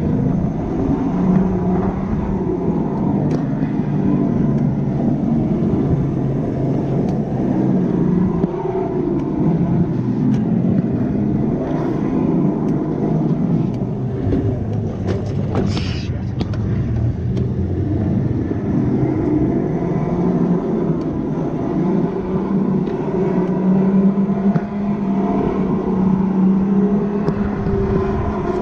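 Electric go-kart driven at speed around a track, its motor whine rising and falling with speed over a steady rush of wind on the microphone.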